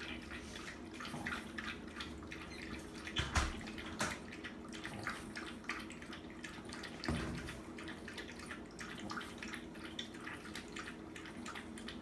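French bulldog lapping water from a bowl: a steady, fast run of wet laps and slurps, with two louder, deeper slurps about three and seven seconds in.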